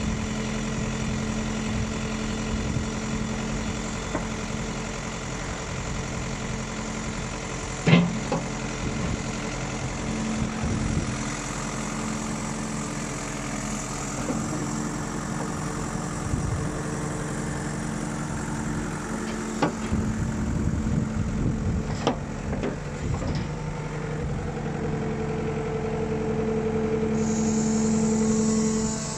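New Holland LB95 backhoe loader's diesel engine running steadily, with a few sharp metal clanks, the loudest about eight seconds in. Near the end the engine note grows louder, then drops off suddenly.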